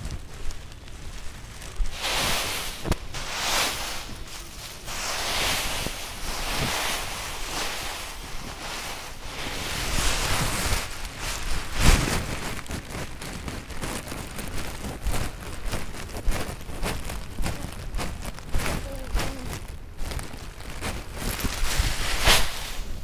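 Dry, crackly rustling of armfuls of freshly cut rice stalks as they are lifted, carried and set down, swelling and fading in irregular bursts, with wind buffeting the microphone.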